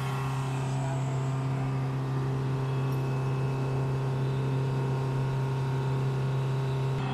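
A running machine's steady low drone, a constant hum with overtones that neither rises nor falls.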